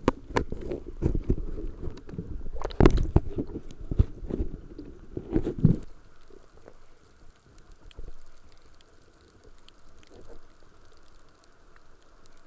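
Underwater water noise: gurgling and rushing low rumbles with sharp clicks for about six seconds, then it drops to a quiet steady hiss.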